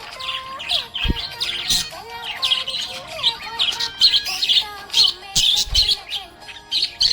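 Budgerigars chirping and warbling: a dense run of quick, high chirps mixed with lower gliding notes, with two short low thuds.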